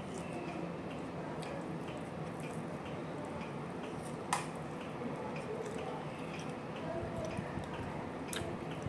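Close-up eating sounds: chewing with the mouth closed and a plastic-gloved hand pressing and mixing rice and fish, small soft clicks and squishes over a steady background noise, with one sharper click about four seconds in.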